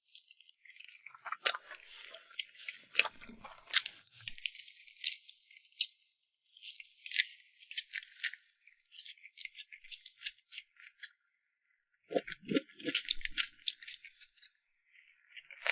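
Close-miked mouth sounds of eating cream cake: quick runs of wet clicks and smacks, with brief pauses, and a few heavier knocks about three-quarters of the way through.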